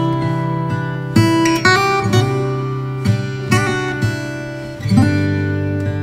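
Background music: strummed acoustic guitar chords, a new chord struck about every second.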